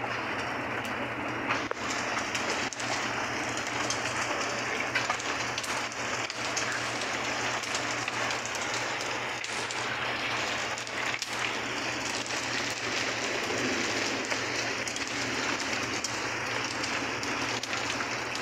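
Hail mixed with rain falling on paving stones and grass: a dense, steady patter with scattered sharper ticks.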